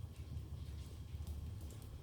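Wood fire burning in a fireplace: a steady low rumble with a few faint crackling pops near the end.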